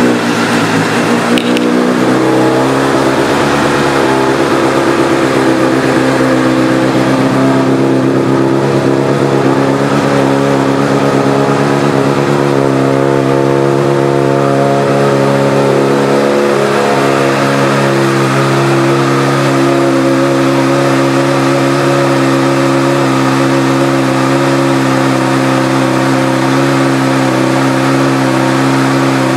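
2011 Honda CBR600RR's inline-four engine, breathing through a Two Brothers Racing aftermarket exhaust, running just after being started. Its idle drops a little over the first couple of seconds, then holds steady.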